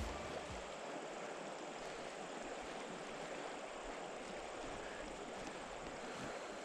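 River water running past, a steady rush.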